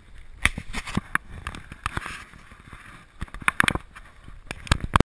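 Irregular sharp knocks and bumps on a small fishing boat over wind and water noise, cutting off suddenly near the end.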